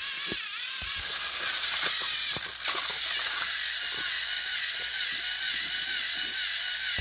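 Small electric motors of battery-powered Thomas & Friends toy trains whirring under load as the engines push against each other, the whine wavering, with scattered light clicks from wheels and plastic track. The sound cuts off suddenly at the end.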